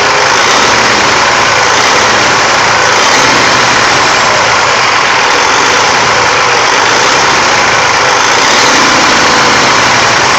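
Caterpillar C15 diesel engine running steadily and loudly close by. The engine has a fault that is pushing gas into its cooling system.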